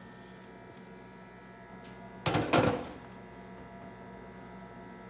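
Steady electrical hum of a running kitchen appliance, with a brief loud clatter of two quick knocks a little over two seconds in.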